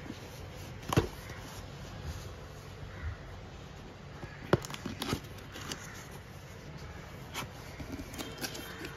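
Cardboard carton being handled and opened by hand: a sharp knock about a second in, two more a little past the middle, and a run of small clicks and rustles near the end as the flap comes open.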